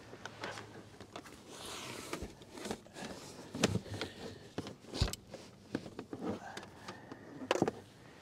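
Irregular knocks, clicks and rustling of gear being handled and moved around in the back of a car, with a few sharper thuds about three and a half, five and seven and a half seconds in.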